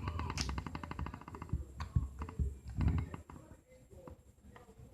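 Glossy slime being squeezed and worked by hand, giving a quick run of small sticky clicks and pops that thins out to scattered single pops.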